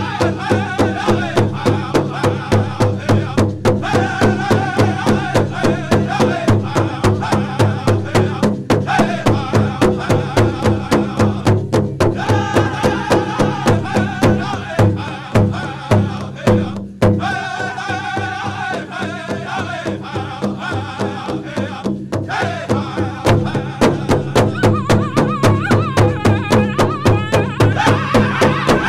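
A powwow drum group singing a prairie chicken dance song: several men strike one large bass drum together in a fast, steady beat while singing in unison, and the singing breaks off briefly a few times between phrases.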